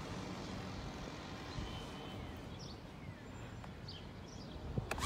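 Steady outdoor ambience with a low rumble of wind on the microphone and a few faint bird chirps, and a couple of sharp clicks near the end.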